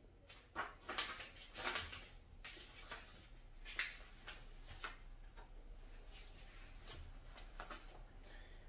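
Paper rustling as the pages of a printed instruction booklet are handled and turned, in short, soft, irregular swishes.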